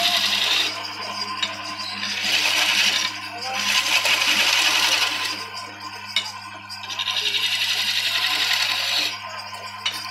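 Wood lathe turning a wooden hookah stem: a cutting tool chatters against the spinning wood in repeated passes of one to two seconds, over a steady motor hum.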